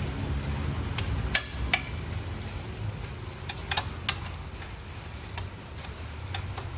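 A scattered series of sharp clicks and taps, irregularly spaced, with the loudest about a second and a half in and a cluster near the middle, over a steady low hum.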